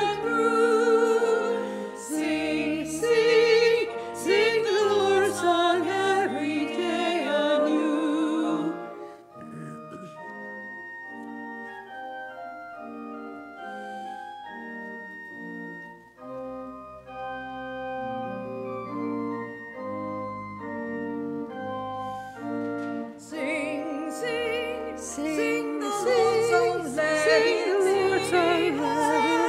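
Small women's vocal ensemble singing a sacred song with organ accompaniment. The voices drop out about nine seconds in for an organ interlude of steady held chords, then come back in near the end.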